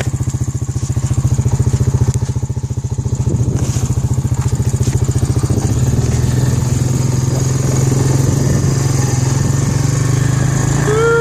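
A small engine running loudly, with a fast even pulse at first that smooths into a steadier drone after about six seconds. Near the end comes a short pitched sound that rises and falls.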